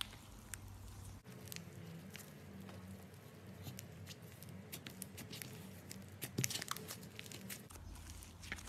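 Hand-squeezed, poked and stretched slime making scattered small crackles and clicks, with soft squishing in between.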